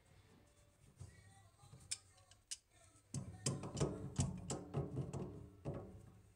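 Tongue-and-groove pliers snugging a plastic slip nut on a PVC sink P-trap past hand-tight. A few faint clicks come first, then about three seconds in a run of creaking and clicking as the plastic nut turns under the jaws.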